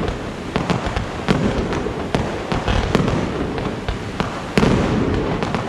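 Aerial fireworks going off: rapid cracks and pops over a continuous low rumble of bursting shells, with a heavy boom about four and a half seconds in.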